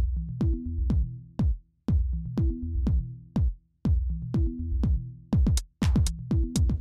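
Background electronic music with a steady drum-machine beat over a bass line; busier high percussion joins near the end.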